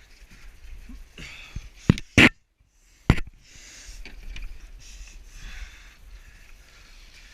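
Hard, rhythmic breathing of a person straining on a climbing obstacle, with three sharp knocks against the helmet-mounted camera about two to three seconds in and a brief cut-out of the sound between the second and third.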